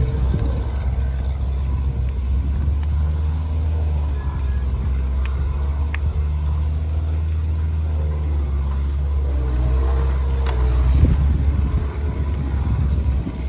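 Large brush-and-stump bonfire burning hard: a steady low rumble of flame with a few sharp crackles and pops.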